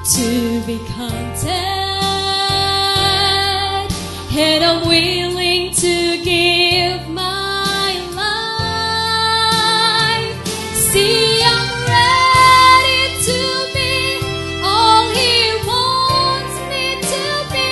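A woman singing a Christian song solo into a microphone over instrumental accompaniment, holding long notes that slide up and down in pitch.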